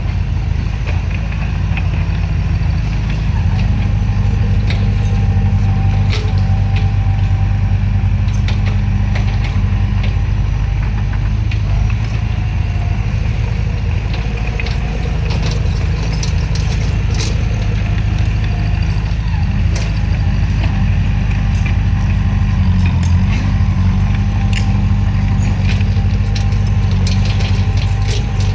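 Bulldozer's diesel engine running steadily under load, a deep even drone, with scattered sharp metallic clicks and clanks that grow more frequent in the second half.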